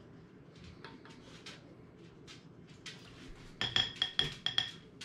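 Faint handling, then a quick run of about half a dozen metallic clinks with a ringing tone near the end: a measuring spoon knocking against the mixing bowl while a teaspoon of vanilla is added.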